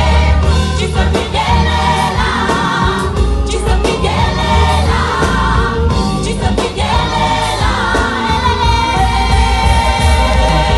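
A large choir singing together over amplified backing with a heavy bass line, the voices moving and holding notes in phrases.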